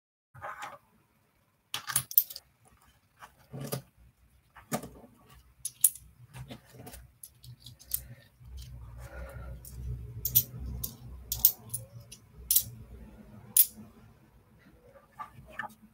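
Small metal objects clinking and jingling as they are handled: an irregular string of sharp chinks, with a low rumble of handling noise through the middle stretch.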